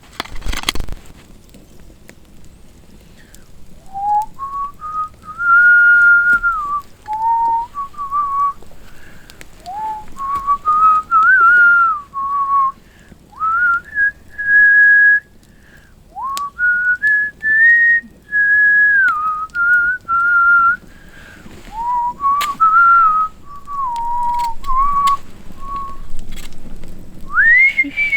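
A person whistling a tune, one clear note at a time that steps and glides up and down in short phrases with brief breaks, starting about four seconds in.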